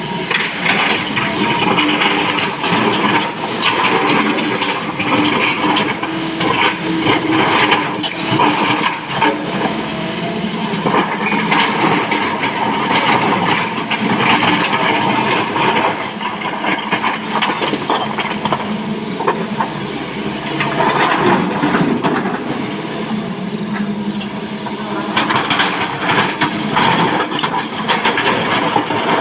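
Hydraulic excavator loading quarry stone: its diesel engine runs steadily under a dense clatter and scraping of rock against the steel bucket, swelling and easing every few seconds as the machine works.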